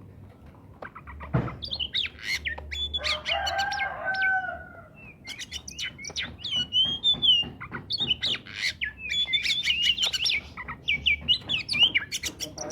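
Oriental magpie-robin singing a fast, varied run of whistles, trills and chattering notes, with a lower drawn-out call about three seconds in.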